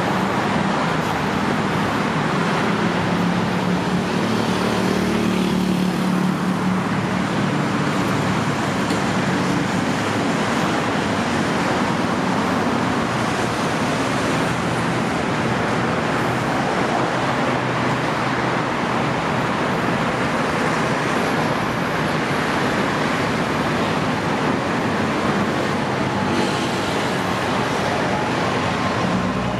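Steady road traffic noise from a busy multi-lane road, with a low engine hum from a passing vehicle strongest in the first five seconds or so.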